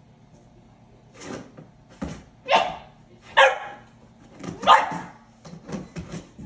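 Boxer puppy barking three times in quick succession in the middle, with quieter knocks and scuffs around the barks.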